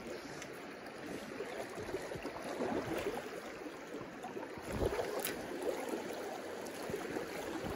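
Shallow river current rippling and rushing over rocks, a steady watery noise, with a couple of brief soft knocks near the middle.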